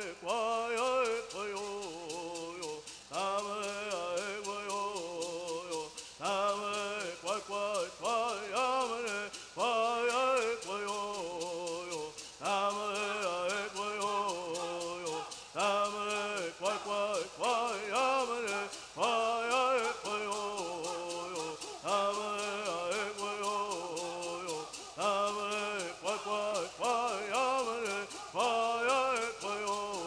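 Southern California bird song: a group of singers chanting in unison over gourd rattles shaken in a steady, fast beat.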